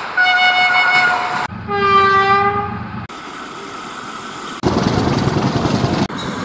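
Train horns in quick succession: a high held blast, then a lower blast that dips slightly in pitch. Then the noise of trains running past, which changes abruptly twice.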